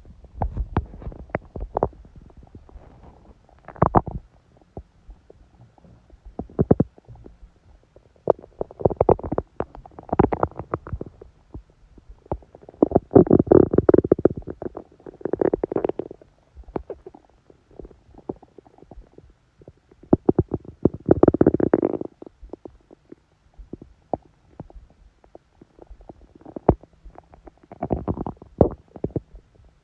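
A woman's stomach growling and gurgling during menstruation: irregular short gurgles and squelches, with longer, louder growls about halfway through and again about two-thirds of the way in.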